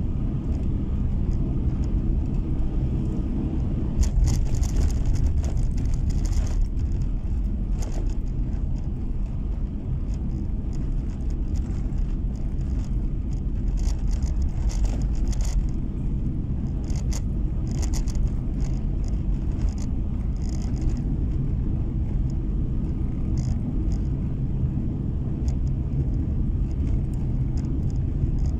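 Steady low rumble of a car driving on a snow-packed road, heard from inside the cabin: engine and tyre noise, with scattered faint clicks.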